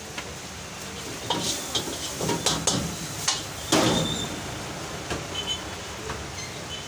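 Spatula clanking and scraping against an iron wok as noodles are stir-fried: a run of sharp metallic knocks in the middle, the loudest about four seconds in, over a steady background hum.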